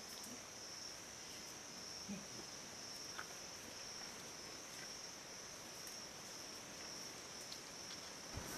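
Steady, high-pitched insect chorus, a continuous even drone, with a couple of faint soft knocks a few seconds in.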